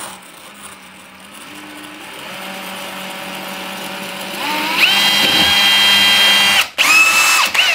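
Bosch cordless drill boring into wall tile with a Bosch drill bit. It grinds slowly at first, then about four and a half seconds in the motor rises to a loud, steady high whine. It stops briefly near the end, starts again, and winds down.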